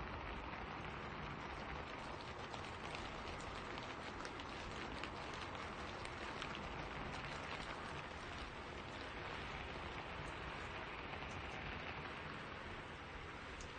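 Steady rain falling in a spruce forest: an even hiss of rainfall with scattered ticks of individual drops.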